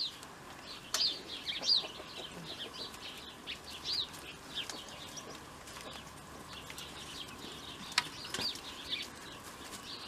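Small birds chirping over and over, each chirp short and falling in pitch, with a sharp click about a second in and a louder one about eight seconds in.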